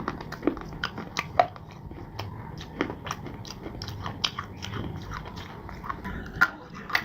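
Close-miked chewing of crunchy clay and slate pieces: an irregular run of sharp crunches, a few each second.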